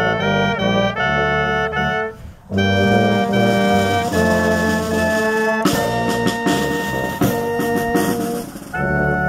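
Military brass band (tubas, trumpets, clarinets, horn and drum) playing slow, held chords of a funeral piece, in phrases with a short break about two seconds in and again near the end; a few drum strokes sound in the second half.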